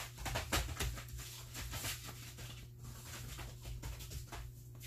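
Dogs' paws scrabbling and crinkling on a plastic tarp as two young dogs play-fight, a quick run of irregular rustles and light taps that thins out after the first couple of seconds, over a steady low hum.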